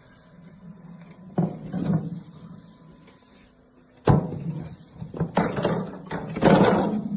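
Handling noises: a sharp knock about four seconds in, then several bursts of rustling and scraping.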